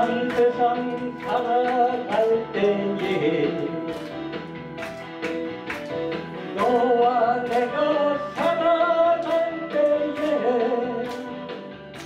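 A woman singing a song live over musical accompaniment, with long held notes and vibrato. A steady beat runs through it, and the audience claps along about twice a second.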